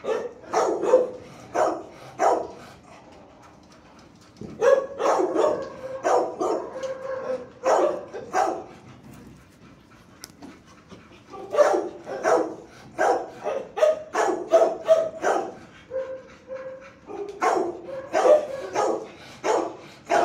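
Shelter dogs barking in four bouts of several quick, sharp barks, with pauses of a second or two between bouts and a few drawn-out whining notes among them.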